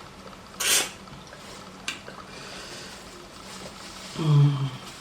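Eating sounds: a short slurp of pepper soup under a second in, a light click near two seconds, then a brief voiced sound about four seconds in.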